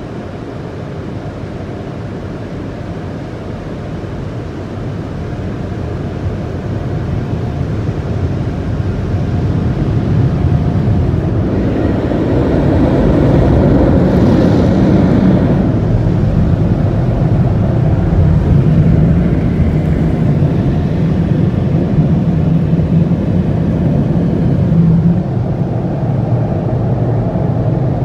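Car wash dryer blowers running, heard from inside the car's cabin as it passes beneath them. It is a steady rushing roar with a low hum, growing louder over the first dozen seconds and then holding.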